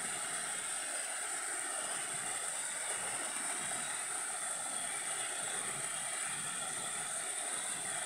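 Mountain stream rushing and splashing over rocks in small cascades, a steady hiss of running water.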